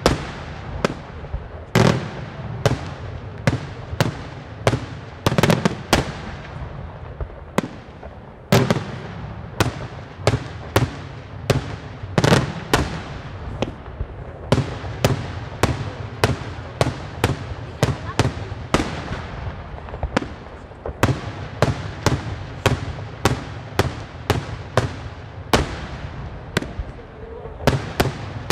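Daytime fireworks display: aerial shells bursting in a rapid, irregular string of sharp bangs, about two a second, each trailing off in a short echo.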